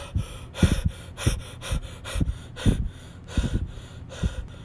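A man breathing hard and panting, one quick, loud breath about every half second.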